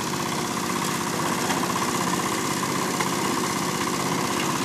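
Small single-cylinder stationary diesel engine running steadily, driving a grass chopper whose blades are spinning and cutting the grass fed into it.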